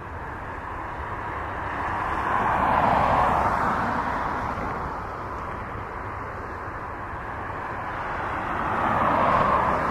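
Jet airliner engines at taxi power from an Air France Boeing 777-300 and a narrow-body jet passing each other on the taxiway. The engine noise is a steady rushing whine that swells twice, about three seconds in and again near the end.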